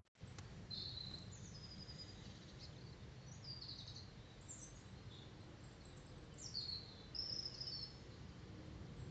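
Small birds chirping and calling faintly in short, scattered phrases over a low, steady background rumble.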